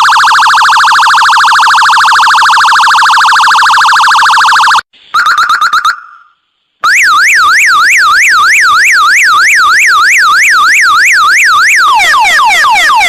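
Loud electronic siren tones played one after another. First a fast warble, which cuts off; then a short burst of pulses that fades; then, after a pause, a yelp rising and falling nearly three times a second, which near the end turns into quick repeated falling sweeps.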